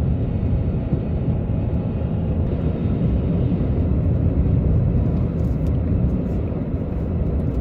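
Steady cabin noise of a Ford Maverick pickup with a 2.0-litre turbocharged four-cylinder, engine and tyres running together at about 38 mph on a snow-covered road.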